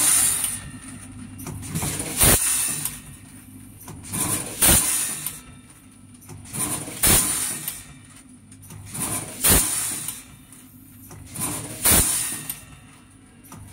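Premade-pouch rotary fill-and-seal packing machine running through its cycle: a sharp clack about every two and a half seconds, with softer noisy bursts of its station mechanisms between the clacks and a steady high whine underneath.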